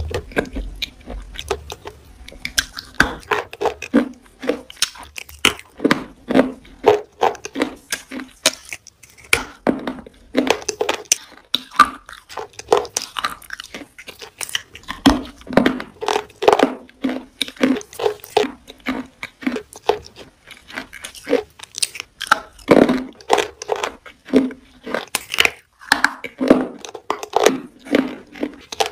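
A person biting and chewing juicy red plums, with wet crunches and smacks coming a few times a second.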